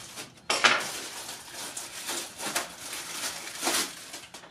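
Plastic packaging crinkling and tearing as a pair of welding gloves is unwrapped, with a sharp crackle about half a second in and smaller rustles after.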